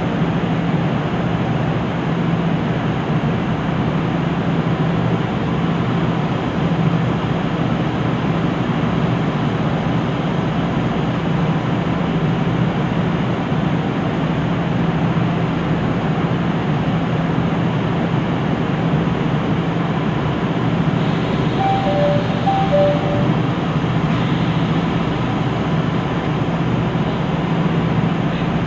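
KiHa 75 diesel railcar's Cummins N14 engine idling steadily while the train stands at a station, heard from inside the car. A few short electronic beeps at two pitches sound about 22 seconds in.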